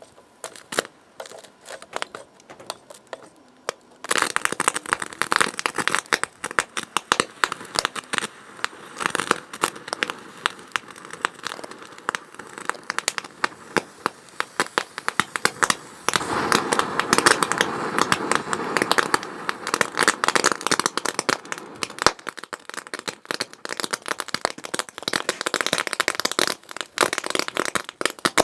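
Electric arc crackling and snapping where a copper rod fed by four batteries in series shorts through a computer motherboard, burning its copper planes. Scattered snaps at first, then dense, continuous crackling from about four seconds in, loudest in the middle.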